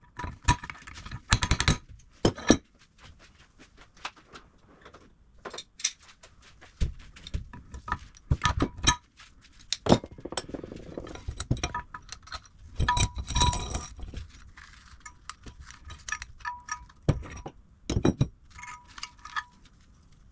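Cast-iron bench vise parts and loose steel washers knocking and clinking as they are handled and taken apart. There are many irregular knocks, some leaving a brief metallic ring.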